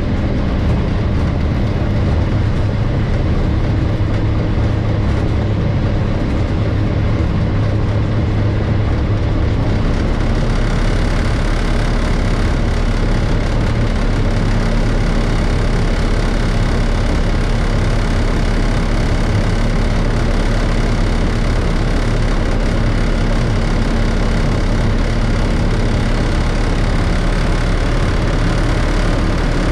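Class 33 diesel locomotive's Sulzer eight-cylinder engine running steadily, heard from inside the cab. About ten seconds in, the engine note changes and a brighter hiss comes in.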